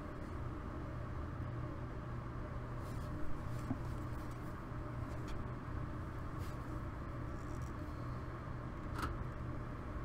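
Steady low background hum, with a few faint clicks and rustles as alligator-clip jumper leads are handled and clipped onto connector wires.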